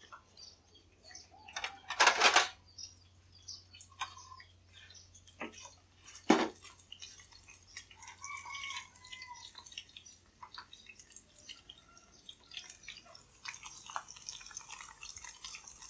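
Battered tofu and mushroom pieces frying in a wok of hot oil, a faint sizzle with scattered small crackles that grows a little toward the end. Utensils clatter loudly about two seconds in and knock again around six seconds in.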